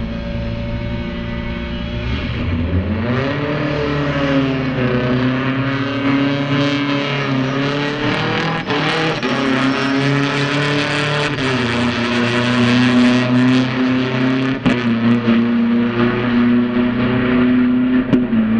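Drag-racing sport motorcycles' engines running hard, the pitch climbing and levelling off several times as the bikes launch and pull down the strip.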